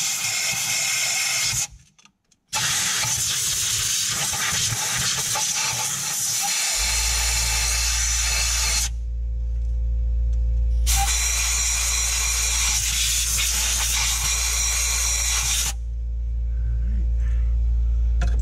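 Compressed air hissing from an air-hose nozzle in three long blasts, blowing out the spark plug wells of a Ford 4.6 V8. About seven seconds in, a steady low hum starts underneath and carries on.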